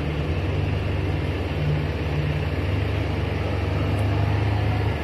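Diesel engines running steadily with a low hum, from a dump truck manoeuvring through heaps of shredded empty palm fruit bunches and a wheel loader close by.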